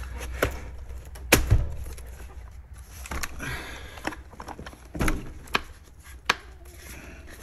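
Several separate sharp clicks and light knocks, with a short rattle about three seconds in, as the Traxxas X-Maxx center driveshaft is turned by hand and worked into its aluminium brace until the splines engage.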